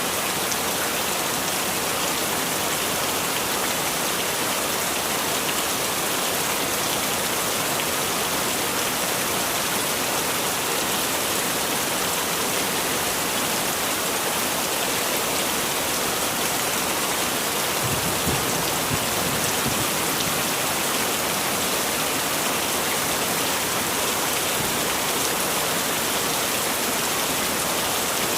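Heavy rain falling steadily: a dense, even hiss, with a brief low rumble about two-thirds of the way through.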